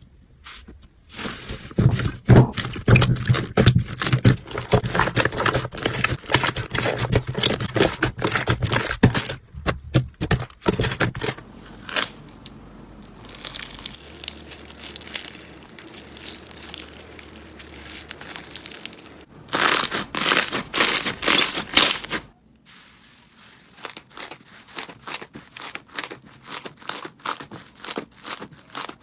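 Slime being squeezed and poked by hand close to the microphone: dense crackling and popping, with quieter sticky squishing in between. The sound changes abruptly several times.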